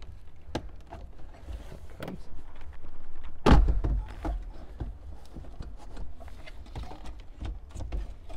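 The plastic dash bezel and factory radio being tugged out of the dash by hand: scattered plastic clicks and knocks, with one louder knock about three and a half seconds in.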